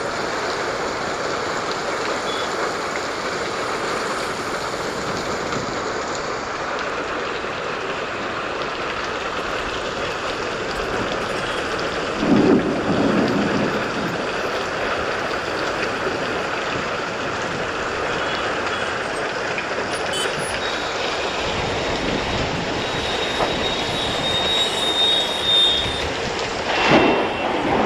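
Heavy rain falling steadily while vehicles pass on the wet road, their tyres hissing through water. One louder pass comes about twelve seconds in and several more near the end, along with a thin high whine.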